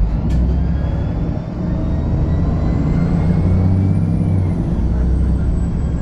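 VDL SB200 Wright Pulsar 2 single-deck bus under way: a low engine rumble with a high whine that rises in pitch as it pulls, then falls away about four and a half seconds in as it eases off. A sharp click sounds near the start.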